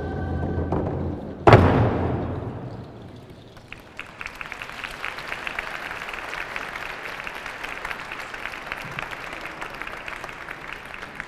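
Group singing to hand drums ends on one loud final drum stroke that rings out in a large echoing hall, marking the end of the song. After a short lull the audience applauds steadily.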